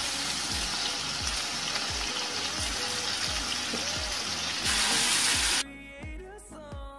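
Hot caramelised sugar and butter sizzling hard in a frying pan as cold cream is poured in. The sizzle gets louder near the five-second mark, then cuts off abruptly, leaving background music with a steady beat that also runs underneath.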